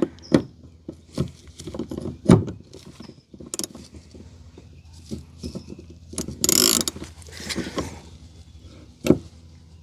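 Scattered clicks and knocks of a lock-ring tool being seated and worked against a fuel pump's ribbed locking ring, which is tight. There is a longer scraping rush about six and a half seconds in.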